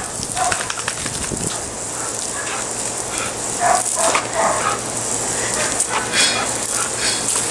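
Garden hose spraying water onto wet concrete, a steady hiss and splatter, while a dog snaps at the stream and gives several short, high yips.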